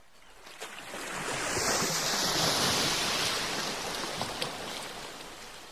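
A rush of noise like surf, swelling over about two and a half seconds and then slowly fading, with a few faint clicks.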